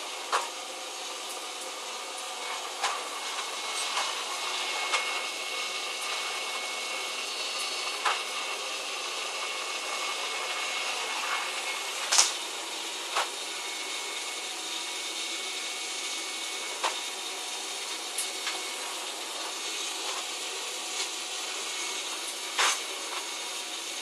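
Canister vacuum cleaner running steadily, a constant rushing noise with a faint steady high tone. Short sharp knocks come every few seconds.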